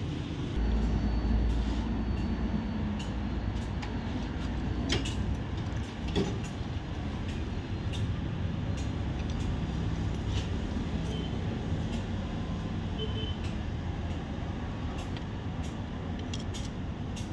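A steady low engine-like rumble of a running vehicle. Over it come a few sharp metal clicks, about five seconds in and again near the end, as a socket on a long extension turns the bolt of a timing chain tensioner.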